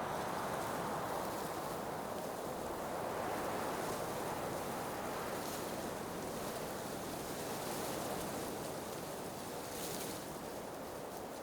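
Blizzard wind blowing steadily, swelling and easing in slow gusts, with brief hissing rushes about halfway through and again near the end.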